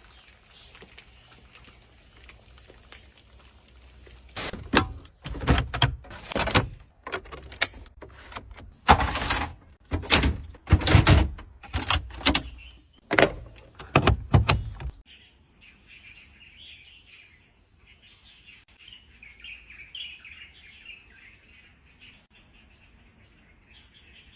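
A run of loud, irregular knocks and thuds lasting about ten seconds, then faint bird chirping for the rest of the time.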